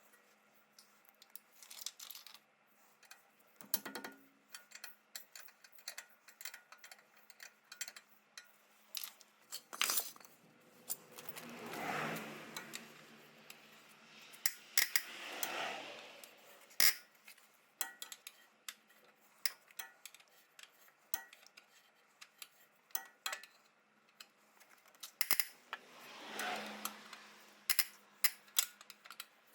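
Metal tools and parts clinking and knocking in scattered single strikes during car suspension work, with three longer noisy stretches of a second or two.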